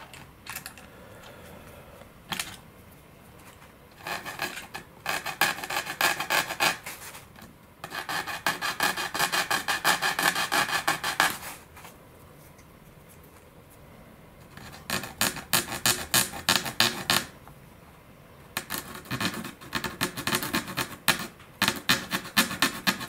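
Hand file rasping on the cut end of a carbon-fibre pushrod, tapering it to a point. The file moves in four bouts of quick back-and-forth strokes with short pauses between.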